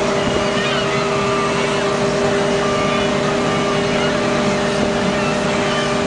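Garbage truck engine running steadily, heard from inside the cab, with steady high tones over it while the truck's hydraulics unload the garbage.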